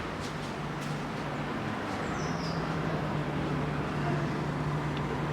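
A boat's engine running steadily with a low hum, under a constant rush of wind and water noise. A brief high chirp comes about two seconds in.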